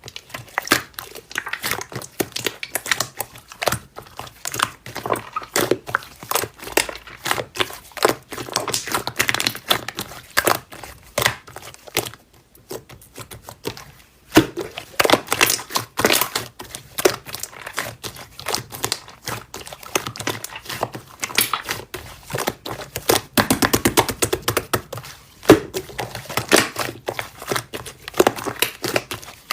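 Slime being pressed, squeezed and stretched by hand, giving a continuous stream of crackling, popping clicks, with a quick run of rapid clicks about three-quarters of the way through.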